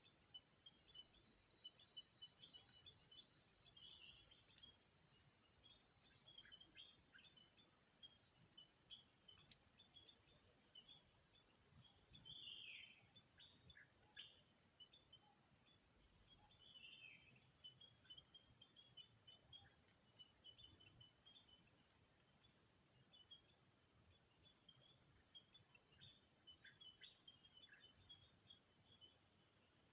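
Steady, high-pitched insect chorus droning on two high pitches without a break, with short high bird chirps scattered through it and a couple of longer calls that slide downward.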